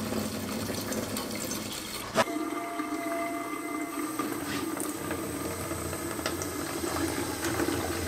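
Fresh water being poured into the radiator filler neck of a Yamaha Kodiak 400 ATV to flush the cooling system. A sharp click about two seconds in marks an edit, after which a thin stream of flush water drains from the cooling system into a drain pan.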